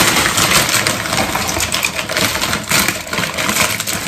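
Frozen mixed berries tipped from a plastic bag, rattling and clicking into a glass blender jug, with the bag crinkling.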